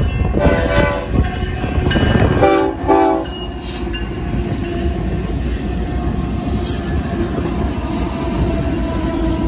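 BNSF freight train's diesel locomotives sounding two horn blasts in the first few seconds, then passing close by with a steady rumble of engines and wheels on the rails.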